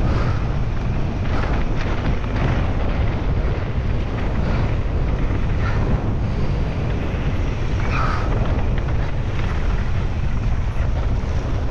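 Wind buffeting the microphone over the rattle and clatter of a mountain bike descending a rough trail at race speed.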